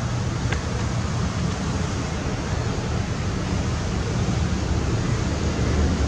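Wind buffeting the microphone: a steady rushing hiss over a heavy, fluttering low rumble.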